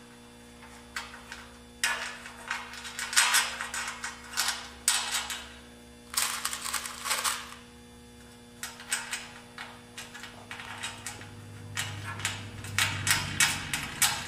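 Metal clicking and scraping as a nut is turned onto a T-bolt and the bolt is worked along the slot of an aluminium greenhouse leg extrusion, in irregular bunches that turn into quicker, regular clicks of about four a second in the second half. A faint steady hum runs underneath.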